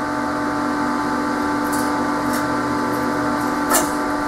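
Slag being pulled off a fresh 6013 stick weld with pliers: a few light clicks and cracks, the sharpest near the end, as the slag lifts off cleanly, a sign the welder is dialed in. A steady machine hum runs underneath.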